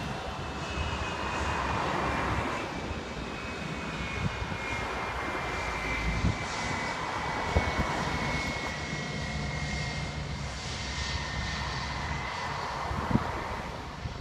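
Jet engines of an Airbus A320-family airliner running at taxi power: a steady rushing noise with a low rumble beneath and a high whine that slowly falls in pitch as the aircraft rolls past.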